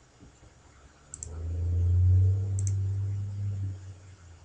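Computer mouse clicks, two quick pairs about a second apart, as a file is chosen. Under them a low hum swells up and fades away over about two and a half seconds.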